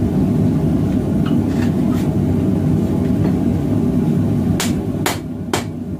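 Propane forge running with a steady low rumble. About four and a half seconds in, hammer blows begin forging the hot steel blade, about two sharp strikes a second.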